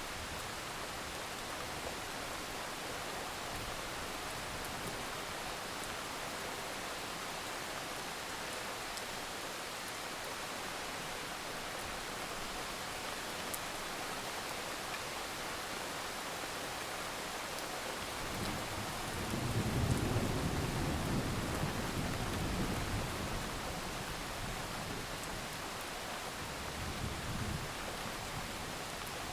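Steady heavy rain hissing, with a low rumble of thunder that swells about two-thirds of the way in and fades over several seconds, and a fainter rumble near the end.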